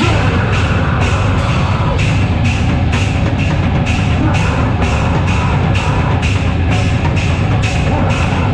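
A loud live band crashes into a song all at once: a drum kit keeps a steady fast beat over a dense, heavy low end of amplified instruments.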